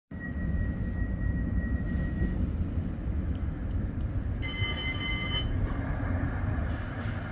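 CAF Urbos 100 tram approaching along the track, a steady low rumble that grows louder near the end. A ringing multi-tone signal sounds for about a second around halfway through.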